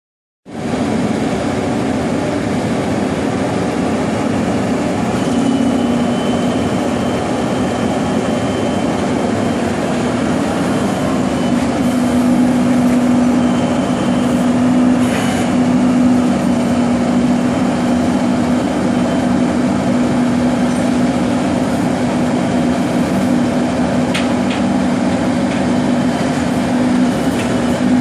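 Rollback tow truck's engine running with its hydraulics engaged, a steady loud mechanical hum as the flatbed tilts and slides back toward the road. A steady low tone in the hum grows stronger about five seconds in.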